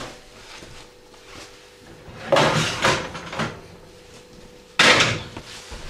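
An oven dish being pulled out from under a kitchen grill and handled: a clattering scrape of a few quick strokes lasting about a second, then a single sharp clunk, the loudest sound, near the end.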